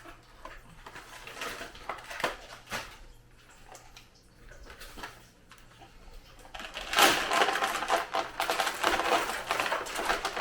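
Candy and its packaging being handled on a serving board: scattered small clicks and taps, then, from about two-thirds of the way in, a few seconds of dense rustling and clattering.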